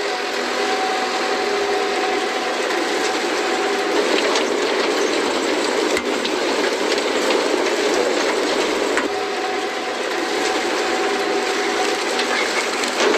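Harvesting machinery running: dense mechanical rattling over a steady engine note, the engine note fading for a few seconds in the middle.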